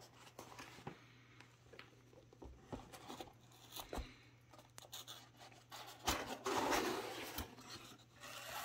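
Cardboard box being handled and opened: scattered light taps and rubbing, then a louder rustling scrape about six seconds in as the lid is pulled open.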